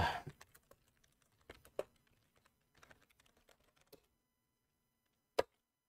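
Computer keyboard keys tapped a few times at uneven intervals, faint, with one louder key strike near the end.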